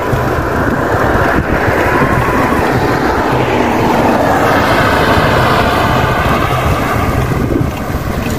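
Wind rushing over the microphone of a moving bicycle on a paved road, with the noise of a passing motor vehicle swelling in the middle.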